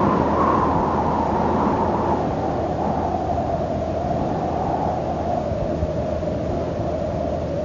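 Steady rushing wind with a hollow tone that slowly wavers and drifts lower in pitch, the sound of air streaming past in flight.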